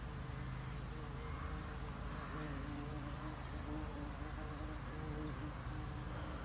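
Flying insects buzzing: a steady low hum with a wavering higher tone that comes and goes.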